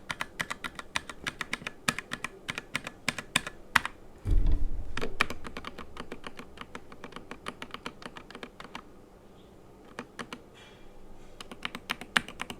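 Typing on a SteelSeries Apex Pro TKL keyboard with OmniPoint magnetic switches: quick runs of key clacks. About four seconds in, a deep thud, the loudest sound, rumbles for about a second. Later the typing thins to scattered keys with a short pause, then picks up again near the end.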